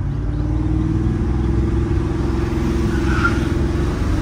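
Porsche Cayenne's swapped-in 4.8-litre V8 under hard acceleration, heard from inside the cabin, its pitch climbing steadily and getting louder, with an upshift near the end.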